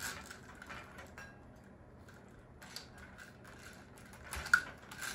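Plastic gear wheels and a small metal chain on a parrot's foraging toy clicking and rattling as a cockatoo tugs and turns them with its beak. Quieter for a moment in the middle, with a sharp click near the end.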